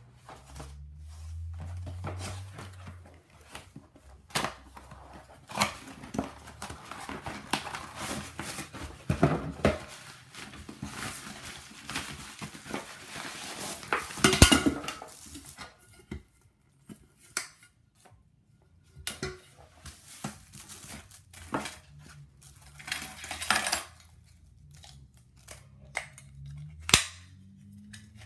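Unboxing handling of an anodized aluminium camping cookware set: rustling of cardboard, nylon bag and plastic wrapping, broken by knocks and clinks of the pot, lid and stainless steel cutlery. The loudest is a sharp knock about halfway through.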